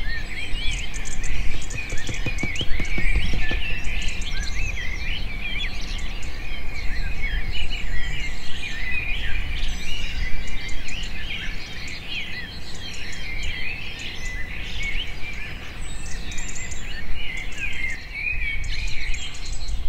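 Many small birds chirping and twittering together, a dense chorus of quick high chirps without a break.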